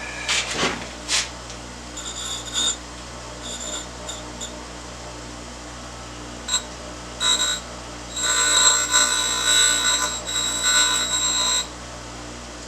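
A few knocks, then a power tool grinding a bevel on the cut edge of a small steel pipe fitting in short bursts, with the longest grinding pass near the end.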